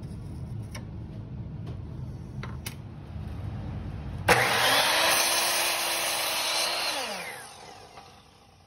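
Ryobi miter saw switched on about four seconds in, its blade crosscutting a hardwood board, then switched off, the motor's pitch falling as it winds down. Before it, a low rumble and a few light clicks.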